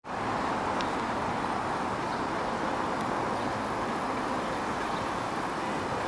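Steady outdoor city noise of traffic and a subway line heard from an elevated platform, with a faint steady tone coming in near the end as a distant R142A train approaches.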